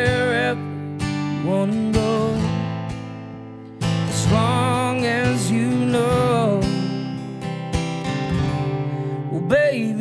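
Solo acoustic guitar strumming under a man singing long held notes with vibrato, in a live performance of a country-style song.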